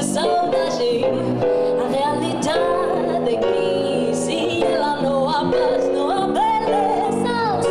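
Jazz trio playing: a woman sings over electric bass and piano, her voice gliding between held notes.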